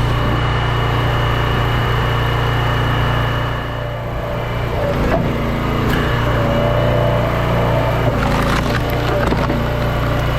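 Log splitter running steadily while hickory rounds are split, with wood cracking and splintering a few times, around the middle and later on.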